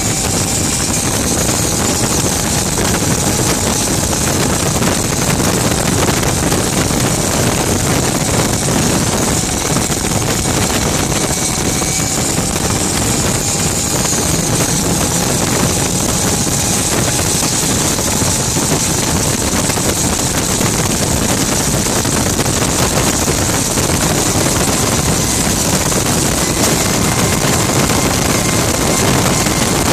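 Gas turbine of a Rover Jet 1 recreation running under load as the car drives at speed, a steady rushing whine with a strong high hiss and a faint tone that rises slowly. Wind rushes past the open cockpit.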